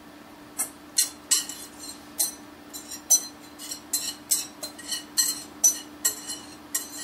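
A metal whisk knocking repeatedly against the rim and sides of a mixing bowl, about two sharp ringing taps a second, scraping a thick egg-and-cheese mixture out onto a pizza crust.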